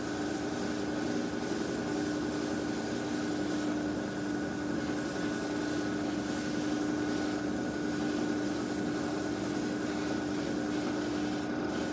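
Mr Hobby PS-290 fan-cap airbrush hissing in short, uneven spurts as the last of the surfacer primer in its colour cup is sprayed, with a brief drop-out near the end. Under it runs a steady motor hum.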